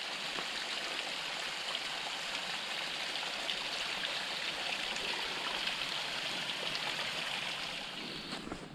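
Running water rushing steadily, like a small stream, easing off a little near the end.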